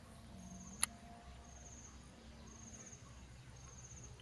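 Faint insect chirping: short pulsed trills, high-pitched, repeating about once a second. A single sharp click comes about a second in.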